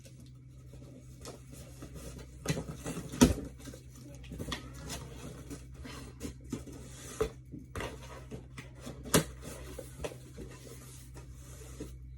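An Avon shipping box being opened and unpacked by hand: irregular rustling, crinkling and clicking, with a sharp knock about three seconds in and another near nine seconds.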